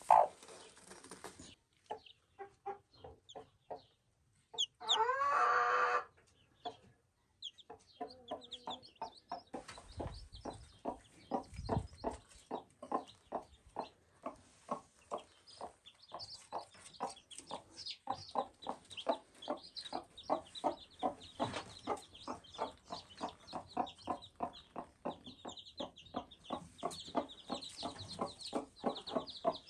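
A mother hen clucking rapidly and steadily, the brooding cluck a hen makes to her newly hatched chicks, with one louder drawn-out call about five seconds in. High chick peeps join in near the end.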